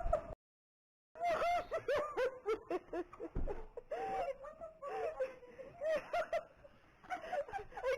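Women laughing in repeated bursts, after a brief dropout to dead silence near the start.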